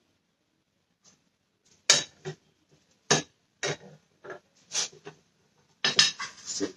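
A spatula knocking and scraping in a frying pan while food is dished onto a plate: a string of separate clinks, then a quicker run of clatter near the end.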